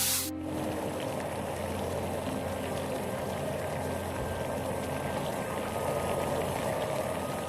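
Eggs frying in hot oil, a steady sizzling and bubbling.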